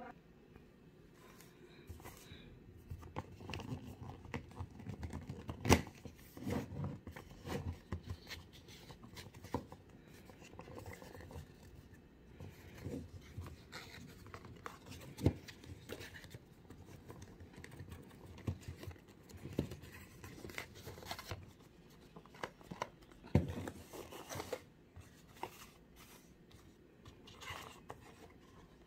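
A small cardboard box being opened and handled by hand: irregular scraping, rubbing and papery tearing of the card and its seal, broken by a few sharper taps and knocks.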